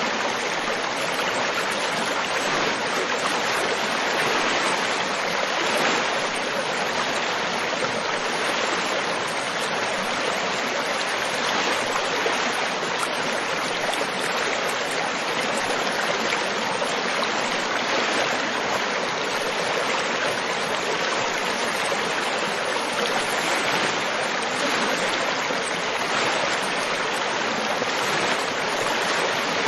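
River water flowing over rocks, a steady even rushing and babbling with no breaks.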